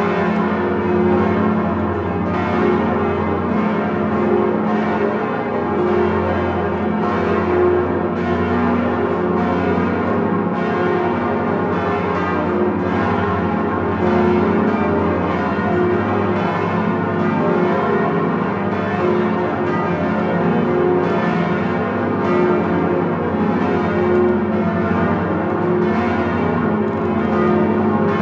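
The swinging bronze bells of Notre-Dame de Paris, bourdons included, ringing together in full plenum. The strikes overlap densely over a deep, steady hum, with no pause.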